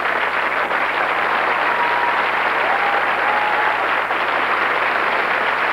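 Studio audience applauding steadily, with two faint short held notes about two and three seconds in.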